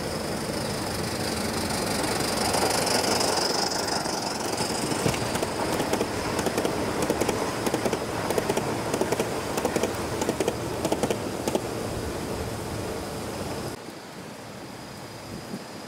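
Gauge 1 live-steam model train running past at track level, its wheels setting off a rapid, irregular run of sharp clicks over the rail joints. The sound drops suddenly near the end.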